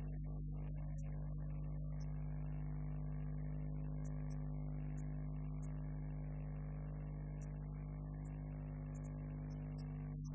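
Steady electrical hum from the room's sound system. A higher, even buzzing tone joins about a second and a half in and cuts off shortly before the end.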